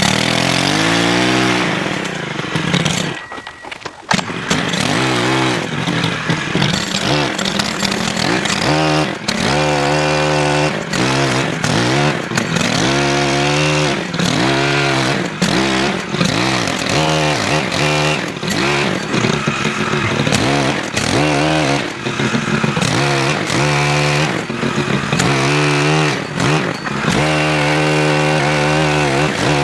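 Stihl HT103 gas pole saw's small four-stroke 4-MIX engine revved up and down over and over while cutting up branches, with a short drop toward idle a few seconds in.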